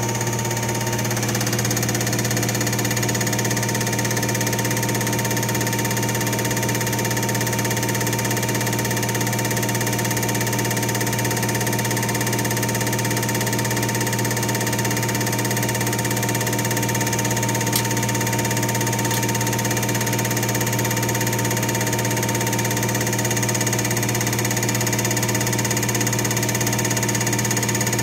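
Dayel common-rail injector test bench running a steady injector test: its motor-driven high-pressure pump gives an even, unchanging hum with several steady tones. A single short click comes about eighteen seconds in.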